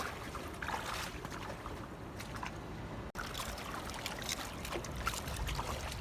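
Seawater trickling and lapping among shore rocks, with wind rumbling on the microphone and scattered small knocks. The sound cuts out for an instant about halfway through.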